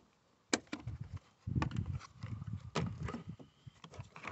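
Hard plastic battery cover clicking and rattling as it is unclipped and worked free: one sharp click about half a second in, then a run of knocks, clicks and scrapes of plastic as it is pulled off.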